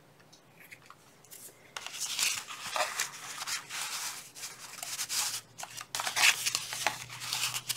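Plastic packaging crinkling and rustling in quick, irregular strokes as a cat licks at it, starting about a second and a half in.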